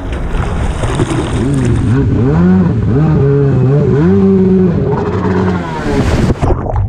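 Stand-up jet ski engine revving hard as the craft rides a wave, its pitch rising and falling with the throttle over a hiss of spray and wind. It cuts off abruptly near the end.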